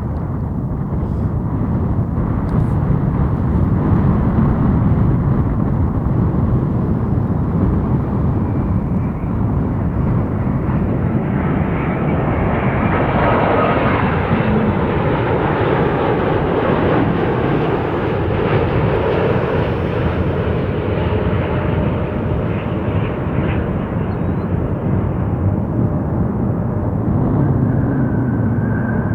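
Boeing 787-8 Dreamliner jet arriving and passing close by: steady jet engine noise that swells to its loudest and brightest about halfway through, then eases off.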